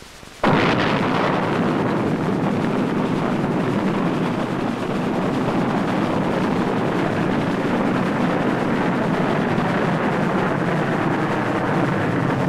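Solid-fuel rocket motor of a Minuteman missile lifting off: a loud, steady roar that starts suddenly about half a second in.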